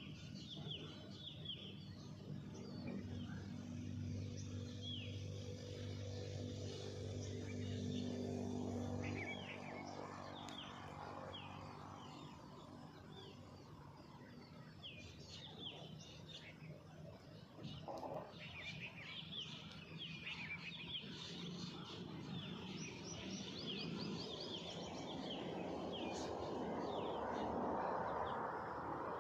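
Faint outdoor ambience: many small birds chirping in short calls, over a low steady hum. A soft rushing noise builds near the end.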